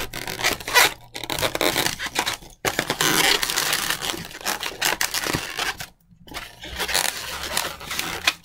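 Inflated 260Q latex modelling balloons rubbing against one another and against the hands as they are twisted and pressed together, in long rubbing stretches broken by two short pauses, about two and a half and six seconds in.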